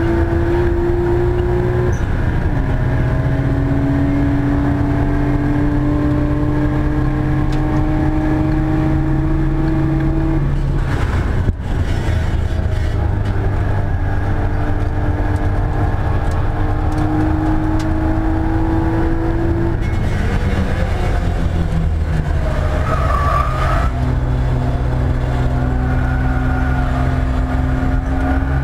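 Nissan Skyline R33 GT-R's twin-turbo RB26 straight-six, fitted with GT-SS turbos, heard from inside the cabin under hard acceleration. The revs climb and drop back at each gear change: once about two seconds in, with a short break near the middle and a lower stretch about two-thirds through, then the revs climb again near the end.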